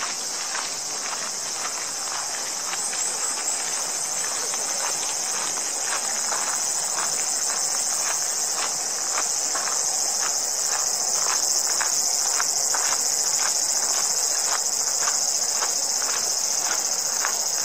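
A steady, high-pitched insect chorus from the trees, growing a little louder past the middle, with footsteps crunching on a gravel path about twice a second underneath.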